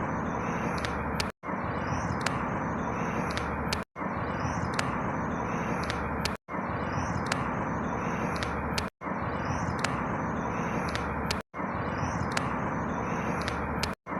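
A short outdoor ambience recording looped over and over, repeating about every two and a half seconds with a brief dropout at each join. Each loop holds a steady rushing noise and a few faint high chirps.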